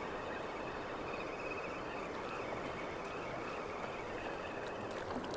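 Steady rushing noise of water flowing through a spillway.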